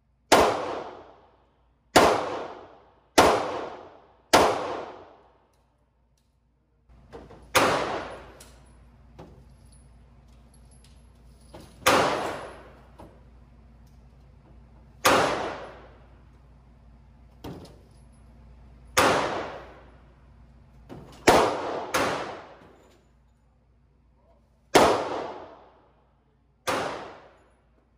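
Handgun shots at a shooting range: about a dozen single shots at irregular spacing, each trailing off with a ringing echo. Two come in quick succession a little past the middle.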